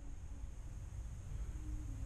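Low, steady background rumble of room noise with faint hiss, and a faint short tone near the end.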